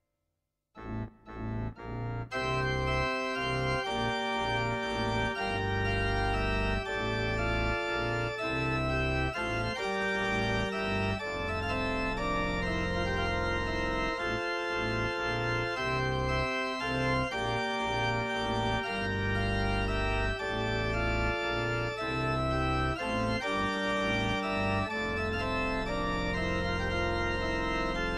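Organ playing a chorale partita. After a moment of silence come a few short chords, then from about two seconds in, full sustained chords over a deep bass.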